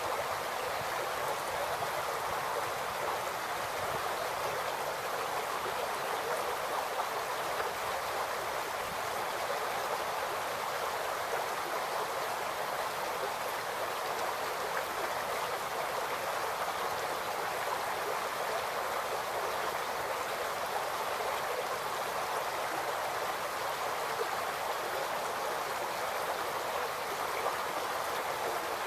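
Shallow creek babbling steadily over rocks, an even, unbroken rush of flowing water.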